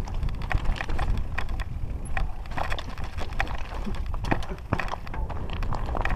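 Mountain bike clattering and rattling over loose rocks on a descent, with many irregular sharp knocks. A steady low wind rumble buffets the microphone underneath.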